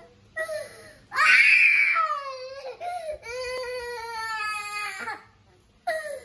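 Toddler crying hard, in long wails with short gaps for breath. The loudest wail rises sharply about a second in, a long, drawn-out wail follows, and after a brief pause another cry starts near the end.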